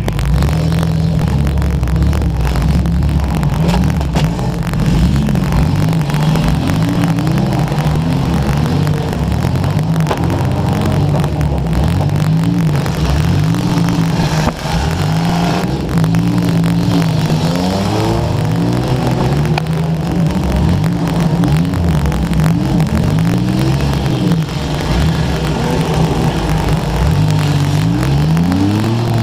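Demolition derby car engines revving hard, their pitch climbing and dropping again and again as the cars accelerate and back off.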